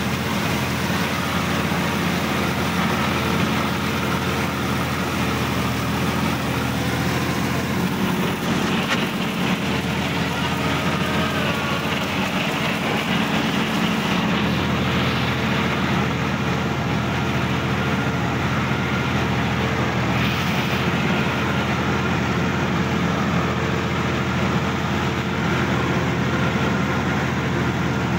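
Sonalika DI-50 RX tractor's diesel engine running steadily as the tractor drives across a field, heard close up from the driver's seat.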